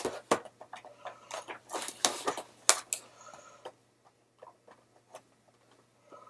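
Hands working at a toy's plastic and cardboard packaging: a quick run of sharp clicks and crackles for the first few seconds, then only a few faint ticks.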